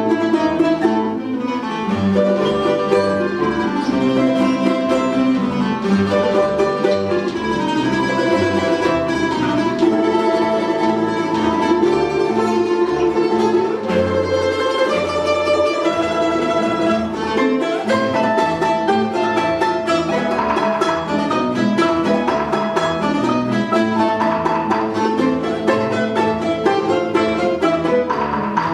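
An ensemble of Russian folk instruments playing a polka-galop, with plucked strings carrying the lively tune.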